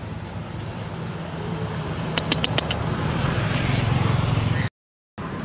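Low, steady hum of a motor vehicle engine, growing louder as it goes, with a quick run of about five sharp clicks a little over two seconds in. The sound cuts out completely for about half a second near the end.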